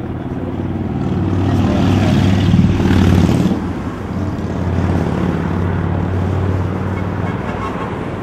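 Highway traffic running steadily, with one vehicle swelling loud and passing about three seconds in before the noise eases back to a steady rumble.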